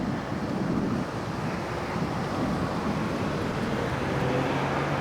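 Steady rushing wind on the microphone, with a faint low hum joining about three and a half seconds in.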